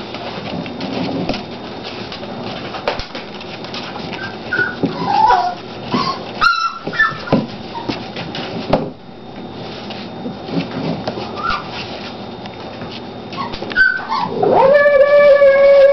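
Olde English Bulldogge puppies whimpering and yipping with short squeaks while they play, then one long, loud whine near the end.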